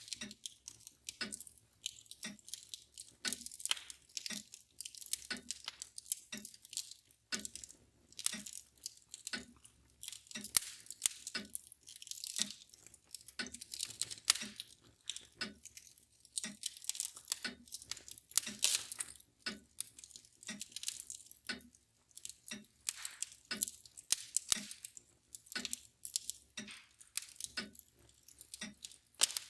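Wood fire crackling and popping irregularly, with a mantle clock ticking steadily underneath.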